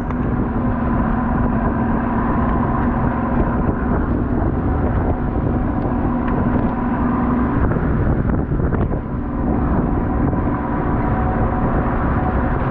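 Crab boat's engine running steadily, with a steady hum that stops about seven and a half seconds in.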